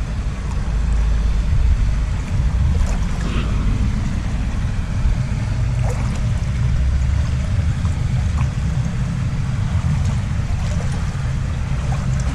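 A man wading in a shallow river: a steady low rumble on the microphone, with a few faint splashes and knocks over it.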